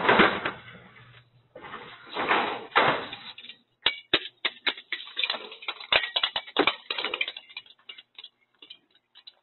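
Sectional garage door opening, heard through a security camera's microphone. Bursts of rushing noise come first, then a quick irregular run of clicks and clacks as the door travels up and shakes loose the ornament wreath hung on it, and the clicks thin out near the end.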